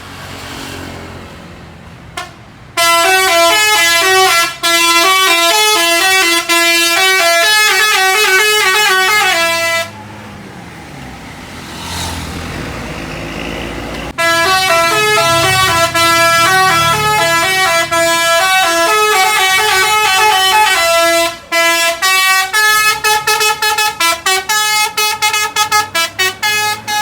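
Bus telolet horn (Basuri multi-tone musical horn) playing a stepping melody of several tones for about seven seconds. It stops for about four seconds while the bus engine rumbles, then plays the melody again. Over the last five seconds it breaks into a quick run of short toots.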